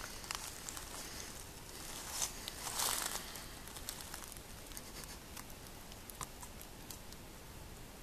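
Dry fallen leaves crunching and rustling underfoot: a few louder crunches in the first three seconds, then only light scattered crackles.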